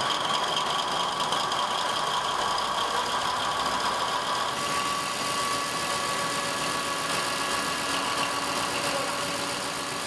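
Isotta Fraschini 16V170C2ME V16 marine diesel generator set running steadily, with a steady high whine over the engine noise.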